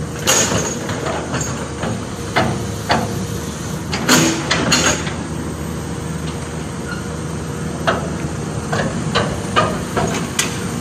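Road-works machinery running with a steady low hum. Irregular sharp knocks and clanks come every second or so, with a tight cluster of them around the middle.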